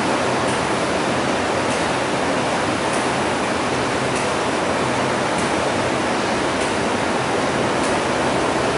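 Steady rushing of flowing water in a filtration plant's pipe gallery, an even, unbroken noise with a low hum underneath.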